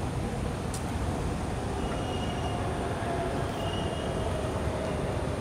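A train running on rails: a steady low rolling noise with a faint, slowly falling tone, and thin high wheel squeals about two and four seconds in.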